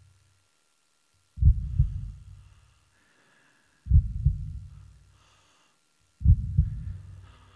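Opening of a pop song: a heartbeat-like double thump in the low bass, repeating about every two and a half seconds and dying away after each beat, with faint high sounds in between.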